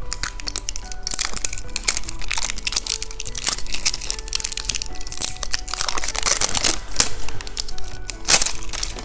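Plastic candy packaging crinkling and crackling as it is handled, in dense irregular bursts, over soft background music.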